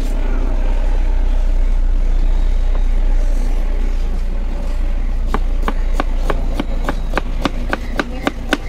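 A low steady rumble throughout. From about five seconds in, a kitchen knife chops green chillies on a plastic cutting board in quick, even strokes, about four or five a second.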